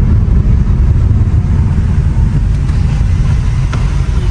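Car driving along a road: a steady, loud low rumble of road and wind noise.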